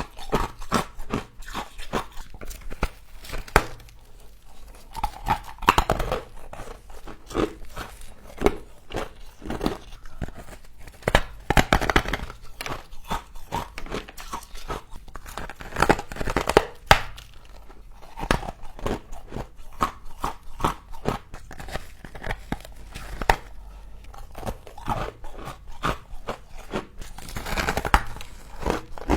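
Humidifier frost being bitten and chewed close to the microphone: a dense, irregular run of crisp crunches and crackles, with several louder bites.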